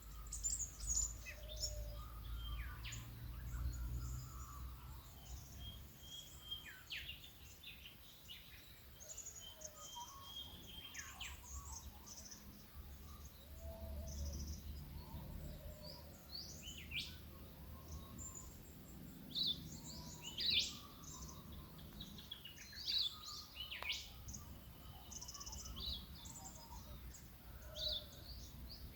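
Many wild birds of the Australian bush chirping and calling over one another in an early-morning chorus, short whistles and sweeping notes overlapping throughout. A faint low rumble runs underneath.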